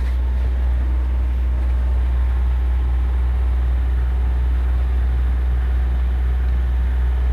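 Sailboat's engine running steadily as the boat motors in with the sails down: an even, low drone.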